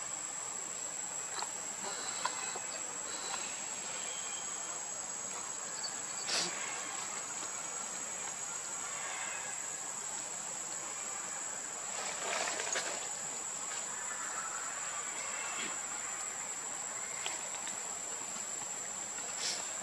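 Steady high-pitched insect drone over a background hiss, with a few brief soft clicks and rustles, the clearest about six seconds and twelve seconds in.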